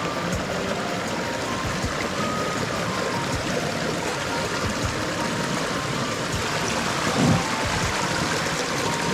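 Water running steadily, as a continuous even flow with no breaks.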